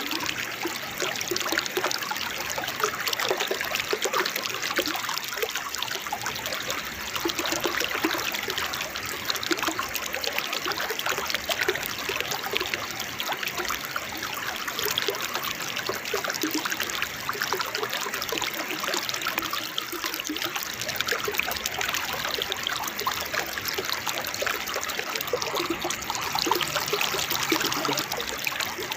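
Water babbling over a small waterfall: a steady, unbroken rush of splashing, trickling water.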